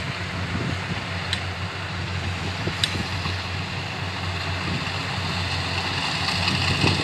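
Kubota DC70 rice combine harvester running, its diesel engine holding a steady drone, with a couple of faint ticks in the first few seconds.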